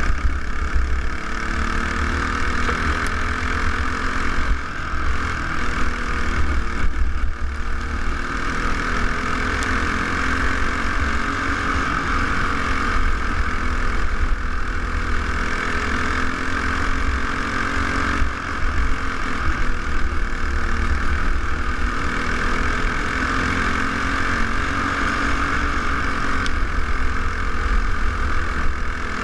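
Single-cylinder four-stroke clone engine of a peewee dirt-track racing kart running hard, heard from on board the kart. Its pitch falls and rises a few times as it laps, over a choppy rumble of wind on the microphone.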